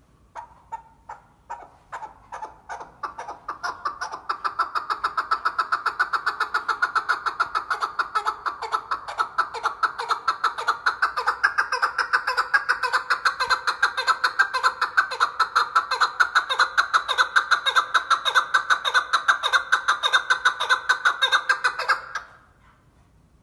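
Chukar partridge calling: a string of clucking "chuck" notes that starts slow and spaced, quickens into a fast, loud continuous run, and stops about 22 seconds in.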